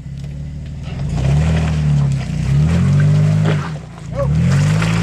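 Jeep Wrangler's engine revving hard in three surges, each rising and then falling in pitch, as it climbs a steep rock ledge under load. The first surge starts about a second in.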